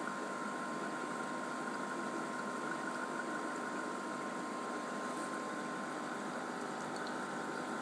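Steady hum and watery hiss of aquarium equipment, an air pump driving a sponge filter, running without change.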